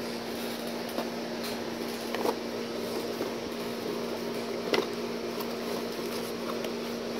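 Steady room hum with one even tone, and a few faint taps and handling sounds as a cardboard mailer box is touched and its lid lifted by hand.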